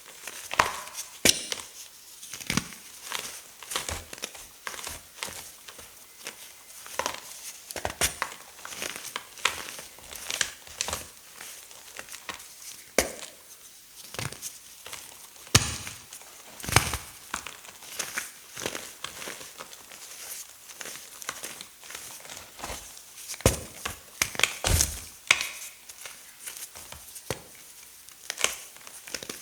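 Hard blocks of gym chalk being crushed: a string of irregular crunches and sharp cracks, with dry crumbling between them.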